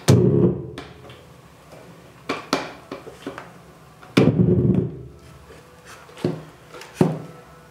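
Wooden home-theatre subwoofer cabinet being handled and its amplifier board panel slid out: a few sharp wooden knocks, with two heavier dull thumps, one at the start and one about four seconds in.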